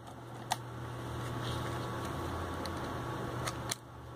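Hands handling a Pioneer car stereo head unit: a sharp click about half a second in and two more near the end, over a steady low hum.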